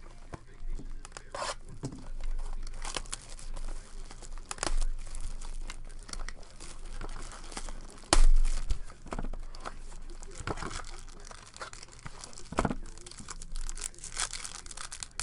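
Foil wrapper of a baseball card pack being torn open and crinkled by hand, an irregular run of crackles and rips. One loud thump about eight seconds in.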